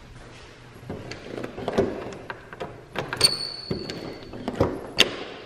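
A balcony door being unlocked and opened: sharp metal clicks from the deadbolt and latch, with a high, steady squeak lasting about a second, starting about three seconds in.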